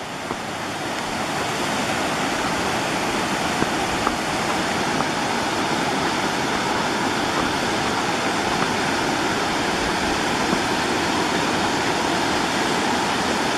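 Waterfall rushing steadily, swelling over the first couple of seconds and then holding level, with a few faint ticks over it.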